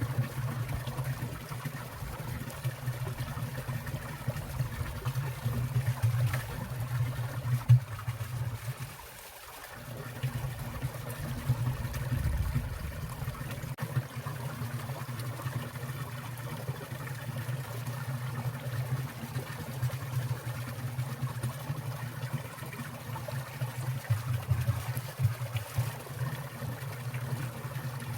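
Water of a winter valley stream trickling and splashing as it falls, over a steady low rumble. The sound dips briefly about nine seconds in.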